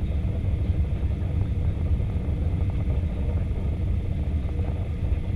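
Steady low rumble of an Airbus A320 in flight, heard from inside the passenger cabin: engine and airflow noise during the descent to land, with a faint steady tone over it.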